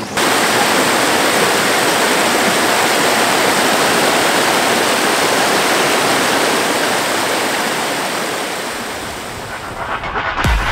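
Rushing water of a small river cascade pouring over rocks: a loud, steady, even rush that fades near the end, where a few sharp thumps begin.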